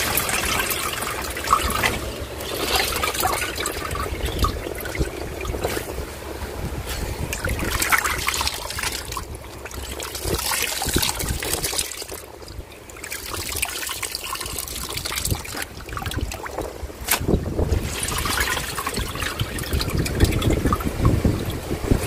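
Wet laundry being pushed around by hand in the perforated spin drum of a portable washing machine, with water trickling and dripping off the rinsed clothes in uneven swells.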